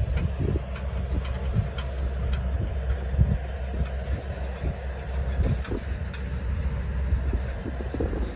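Ashok Leyland diesel tipper truck driving on a rutted dirt track: a steady low engine rumble with irregular clanks and rattles scattered through it.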